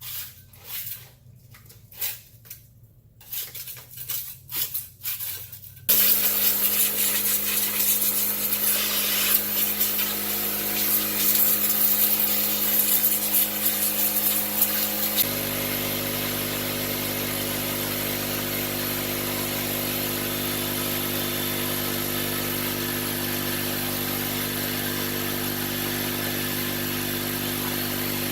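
A few sharp metallic clinks and knocks, like hand tools on metal, then about six seconds in a motor starts and runs steadily. About halfway through its tone changes abruptly, then it holds even.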